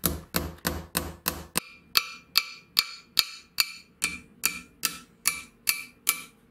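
Ball-peen hammer peening over metal rivets that hold a rubber pad to a corking machine's steel base plate: a steady run of sharp metal-on-metal taps, about three a second. From about two seconds in the strikes ring out with a clear tone.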